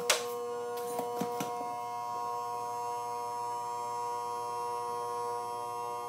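Steady electronic buzzing hum of several held tones, with a few sharp clicks in the first second and a half.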